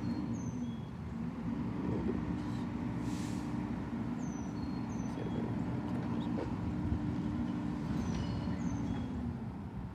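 Garbage truck engine some way off, revving up and holding a steady raised speed for several seconds before dropping back near the end. A short hiss comes about three seconds in, and birds chirp faintly.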